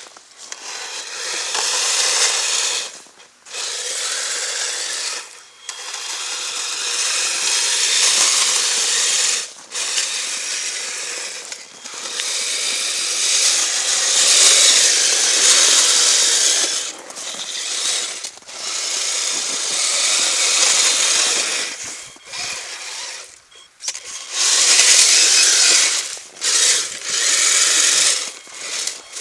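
Kyosho Blizzard FR radio-controlled snowcat driving over hard-packed snow: its electric motor, gears and plastic tracks run with a gritty whir in spurts of a few seconds, dropping out briefly about ten times as the throttle is let off and opened again.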